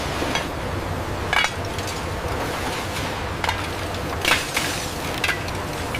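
Pieces of scrap iron and steel clanking and clinking against each other at irregular intervals, about six sharp metal knocks, over a steady low machinery hum.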